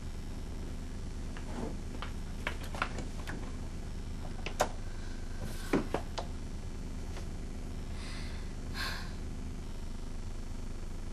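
Scattered light knocks and clicks of things being handled, loudest around the middle, over a steady low hum, with a short rustle near the end.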